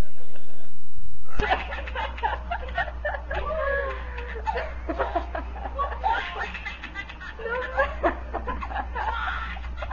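People laughing on a webcam call: a man's loud laugh for the first second or so stops abruptly, then a woman laughs hard in choppy bursts of giggles and high squeals over a steady low hum.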